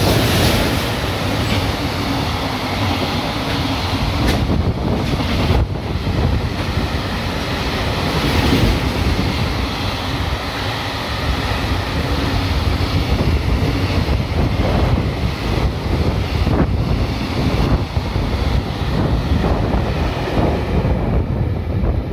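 JR Freight EF210 electric locomotive passing close by at speed, followed by a long string of container wagons: steady rumbling noise of wheels on rail that stays loud throughout.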